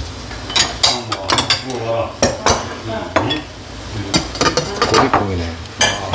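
Cookware clatter: a ladle clinking and scraping in a pot of soup, and the pot's lid knocking as it is lifted off and set back on, a quick string of sharp clicks and knocks.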